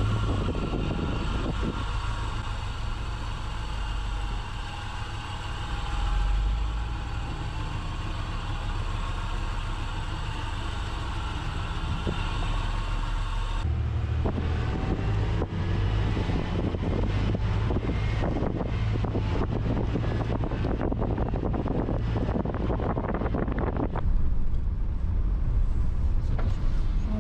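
Off-road vehicle engine running under way, with low rumble and scattered rattling. The sound changes abruptly twice, about fourteen and twenty-four seconds in.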